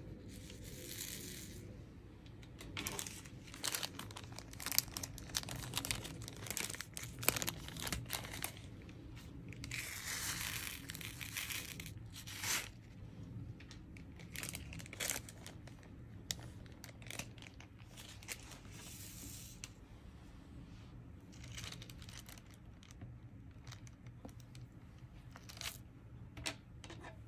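Diamond-painting supplies being handled: plastic rustling and crinkling in several stretches, with many scattered small clicks and taps, most of them in the first third.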